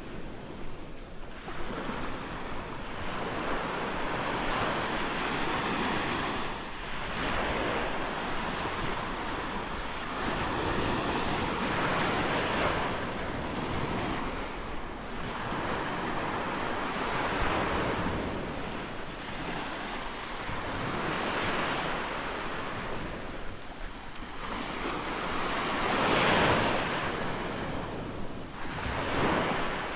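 Small Gulf of Mexico waves breaking and washing up the sand, surging and fading every few seconds, with one louder wave near the end. Wind blows over the microphone.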